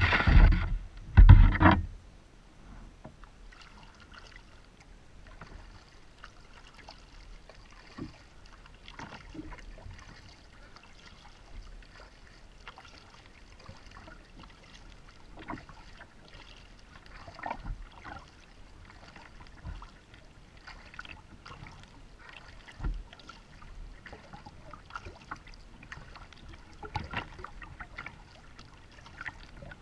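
Two loud bumps against a kayak hull in the first two seconds, then light water sounds and scattered small clicks and knocks of gear being handled in the kayak.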